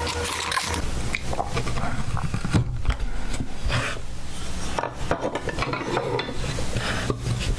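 Hand carving chisel scraping and paring into a wooden board in short, irregular strokes, with a few sharp ticks of the blade.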